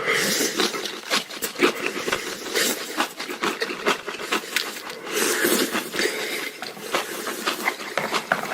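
Close-miked chewing and crunching of crisp food, a dense run of wet crackles and clicks from the mouth.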